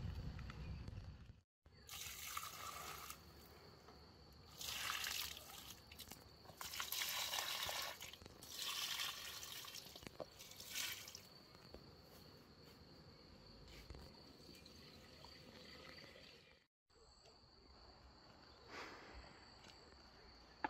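Water pouring and trickling in about five short spells of a second or so each, with quieter gaps between.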